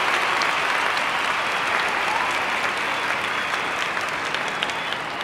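Crowd applause and cheering, a dense clapping noise that slowly fades, with a few light clicks.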